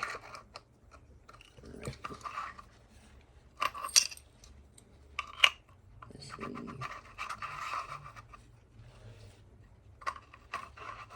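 Handling noise of metal flashlight parts being fitted together: scattered clicks, scrapes and light metallic clinks, with two sharper clicks about four and five and a half seconds in.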